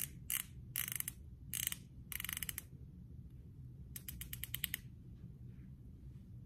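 Twist-up lip balm tube clicking as its base is turned to wind the balm up, a mechanism that takes many turns to raise it. Short bursts of ratcheting clicks over the first two and a half seconds, then a quick string of clicks about four seconds in.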